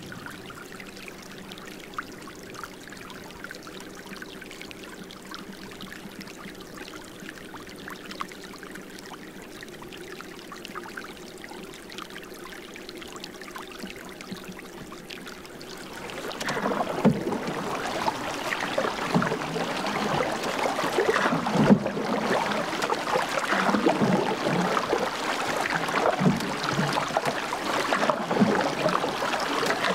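Water trickling and splashing, steady and fairly quiet at first, then louder, with irregular splashes from about halfway through.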